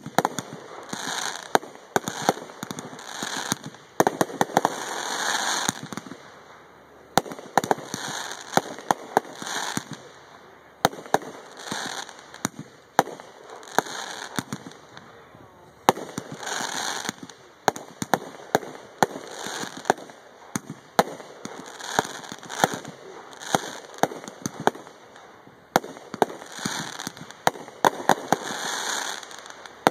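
Aerial firework shells launching and bursting in quick succession: many sharp bangs, some coming in quick clusters, with stretches of hissing crackle between them.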